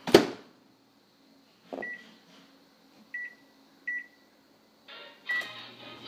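Microwave oven door shutting with a sharp clunk, then four short keypad beeps as the buttons are pressed. Near the end the oven starts running with a steady hum.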